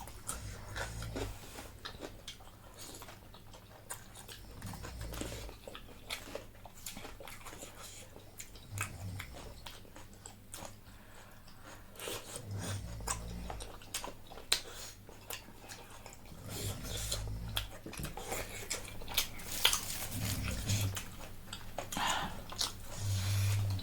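Close-up eating sounds: chewing and slurping of noodles and food, with many short, sharp clicks and smacks throughout.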